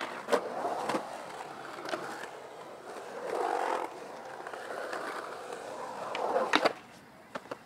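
Skateboard wheels rolling and carving on a concrete bowl, with sharp clacks of the board against the concrete. The rolling swells louder about three and a half seconds in, and a cluster of clacks near the end is followed by the rolling dying away.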